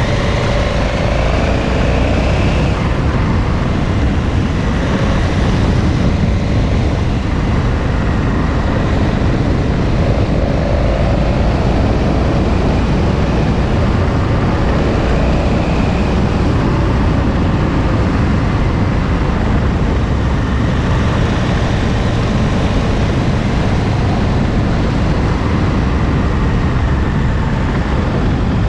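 KTM 1290 Super Adventure's V-twin engine running under way, its note rising and falling a little through the bends, under heavy steady wind noise on the microphone.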